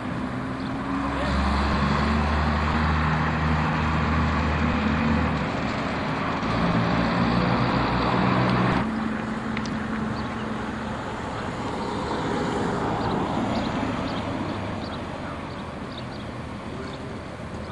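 Diesel engine of a double-decker bus running close by, its note shifting in pitch a few times. About nine seconds in it cuts off abruptly and gives way to quieter street traffic.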